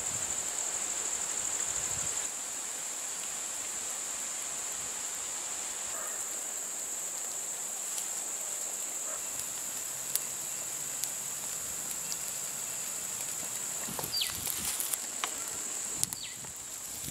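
Steady high-pitched drone of insects. Near the end come a few light scrapes and clicks of a wooden spatula against the steel omelette tray.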